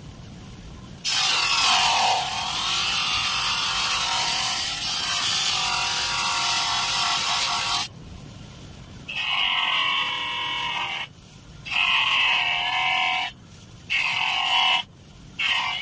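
Stainless steel watch case parts and the crystal pressed against a spinning buffing wheel on a bench polishing motor: a loud, high rubbing whine whose pitch wanders as the piece is worked. It drops several times to a quieter hum when the piece is lifted off the wheel.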